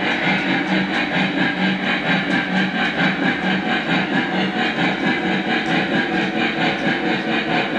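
Lionel Legacy Norfolk & Western Y6b 2-8-8-2 model steam locomotive running on three-rail track, its onboard sound system chuffing steadily at about four chuffs a second over the rumble of its wheels.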